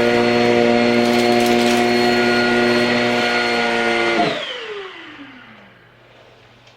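Shark Rocket corded stick vacuum running steadily on carpet with a whining motor, switched off about four seconds in; the motor then spins down in a falling whine that fades over a couple of seconds.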